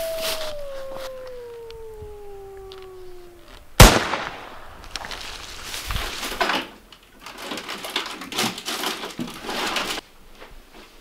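A long howl that rises and then slowly falls in pitch, cut short by a single loud rifle shot about four seconds in. Several seconds of irregular rustling and scuffing follow.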